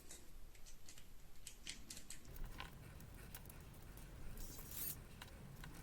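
Faint scattered clicks and light plastic handling noise from the small rotary tool's plastic case and internal wiring being fitted back together by hand.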